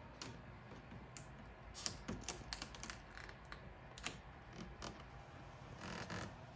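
Gloss black vinyl wrap film crackling and clicking as fingertips press and work it down over the studded plastic front grille of a Mercedes GLC 300. Faint, irregular clicks come in small clusters, with a brief rustle near the end.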